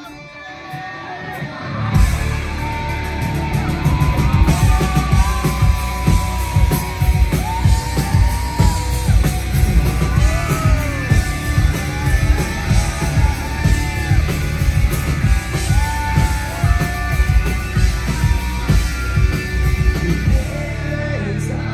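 Rock band playing live: a quieter opening, then the full band with heavy bass and drums comes in about two seconds in, with loud singing over it.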